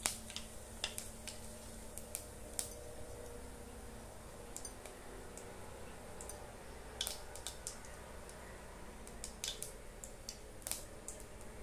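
Cumin seeds crackling in hot oil in a kadai, the tempering (tadka) step of a curry: irregular sharp pops and crackles scattered throughout.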